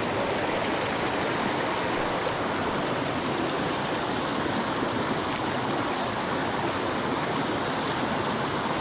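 Mountain stream rushing over rocks: a steady, even water noise.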